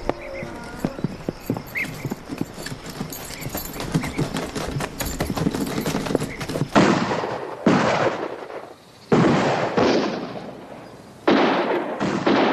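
A horse's hooves clip-clop as a horse-drawn buggy moves off. Then, about seven seconds in, comes a series of about six gunshots, each with a long echoing tail.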